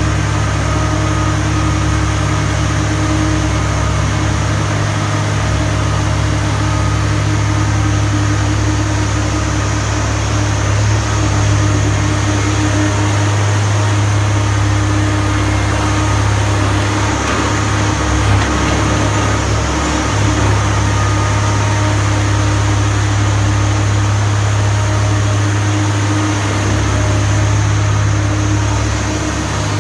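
Diesel engine of a Komatsu PC300LC telescopic excavator running steadily, a low drone that holds its pitch with only small swells in level.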